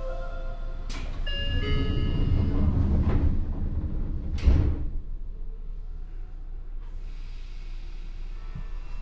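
A short station melody, then a few high chime-like tones, then the sliding doors of a Seibu 9000 series commuter train closing with a thud about four and a half seconds in. After that only a steady low hum from the standing train.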